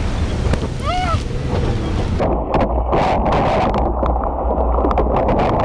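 Nissan Pathfinder's VG30E V6 engine running hard off-road, with wind buffeting the microphone. There is a short shout about a second in, and from about two seconds in gravel and mud knock against the underbody over a muffled rumble.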